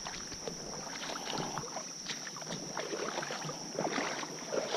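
A person's footsteps wading through a shallow creek, irregular splashes and sloshing of water around the legs, over a steady high-pitched insect drone.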